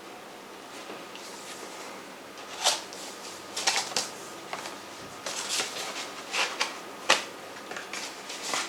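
A CD and its packaging being handled: irregular plastic clicks and paper rustling, with two sharper clicks standing out, starting a couple of seconds in.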